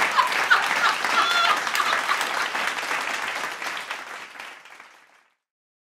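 Applause, with a few cheering voices mixed in during the first second or so. It fades out and stops about five seconds in.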